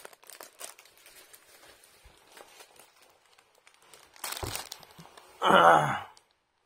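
Plastic wrapping crinkling faintly as a packaged steamed cake and a plastic drink bottle are handled, then a thud as they are set down on a table about four seconds in. Just after, a man's brief wordless vocal sound, the loudest part.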